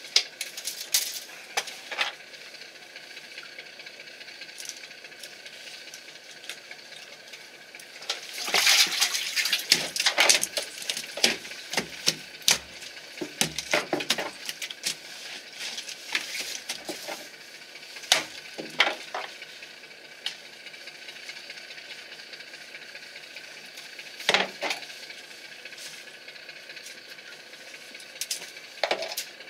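Irregular metallic clinks and rattles over the steady hum of a boat engine, the clatter thickest for several seconds starting about eight seconds in and again briefly twice later.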